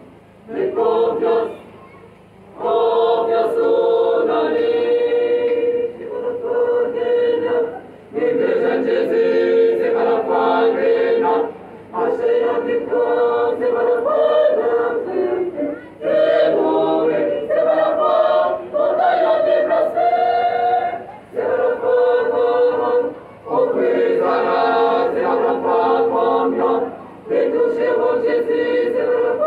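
Church choir singing in phrases of a few seconds, each followed by a brief break, with long held notes.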